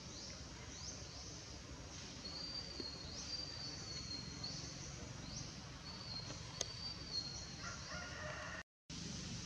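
Birds calling: high, quick rising chirps repeating about twice a second, mixed with a few short level whistles, over a steady low background hiss. The sound cuts out for a moment near the end.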